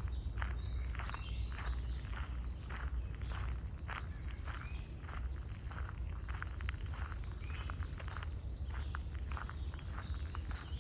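Footsteps on a path at walking pace, about two steps a second, with birds chirping rapidly and steadily above them.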